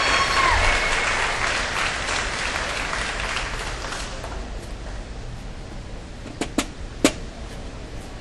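Audience applause in a large hall, fading away over the first few seconds, followed by three isolated sharp clicks near the end.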